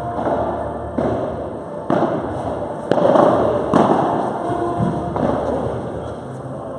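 Padel rally: the ball struck by rackets and rebounding off the glass walls and floor, a sharp hit about once a second, each echoing around the large hall.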